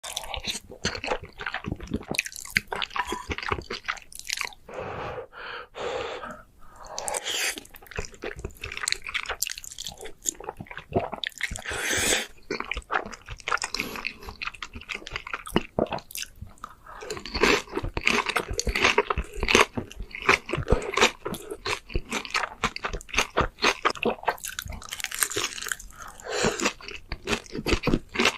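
Close-miked mukbang eating: a person biting and chewing food with loud wet mouth smacks and crunches, many sharp clicks in quick succession.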